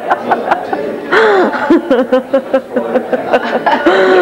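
A woman laughing and giggling, with a fast, even ticking underneath at about five ticks a second.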